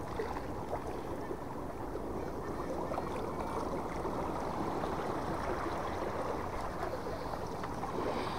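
Small sea waves washing and swirling over rocks at the water's edge, a steady sloshing with no single loud splash.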